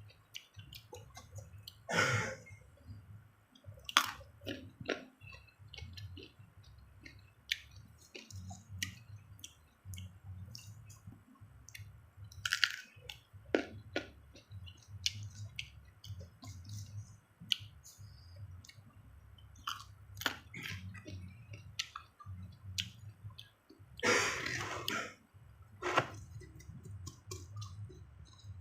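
Close-up chewing and crunching of raw young mango: sharp crisp crunches with wet mouth clicks in between. The loudest crunches come about 2 and 4 seconds in, around the middle, and in a longer bite near the end.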